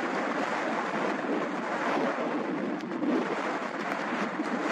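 Boeing 767-200 freighter taxiing on wet pavement: a steady rush of jet engine noise at low power, with no clear whine.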